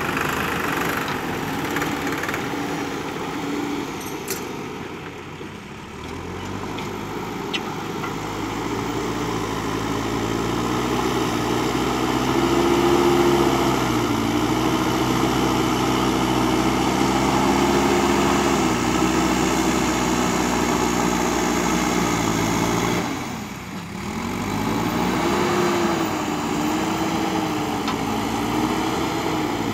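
JCB backhoe loader's diesel engine running under working load, revving up and down as the front bucket digs and lifts sand. About three-quarters of the way through, the engine note drops sharply and then climbs back.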